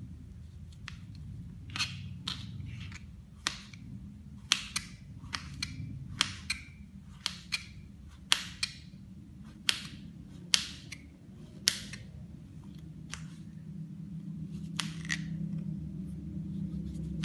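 Kitchen knife slicing button mushrooms on a plastic cutting board: irregular sharp taps as the blade goes through each slice and hits the board, about one to two a second, over a low steady hum.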